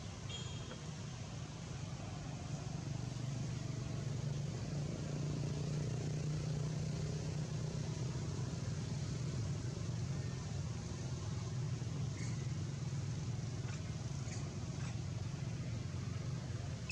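Steady low mechanical hum, with a few faint short high clicks in the last few seconds.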